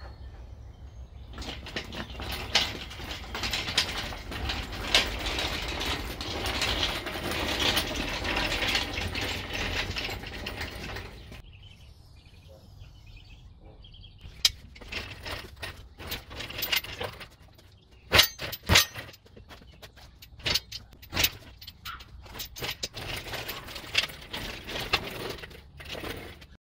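Metal clanks, clicks and ratcheting from a shop engine hoist with an engine hung on its chain as the hoist's hydraulic jack handle is pumped. For the first ten seconds or so a steady rushing noise with a few sharp knocks runs underneath; after that come separate, irregular metal clicks and clanks.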